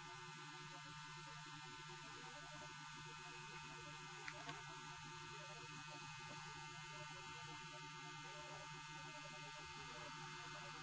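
Faint steady electrical hum with a thin whine above it: room tone, with two tiny clicks about four seconds in.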